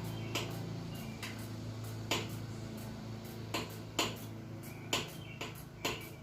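Hand ratchet clicking in short, slow strokes while working a bolt loose in a cramped engine bay: single sharp clicks at irregular gaps of about a second, over a steady low hum.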